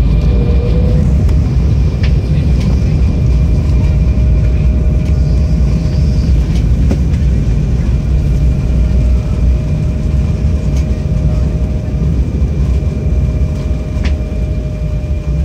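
Cabin noise inside an Embraer 190 rolling on the ground after landing: a steady low rumble from the wheels and idling engines, with a faint steady whine and a few brief knocks.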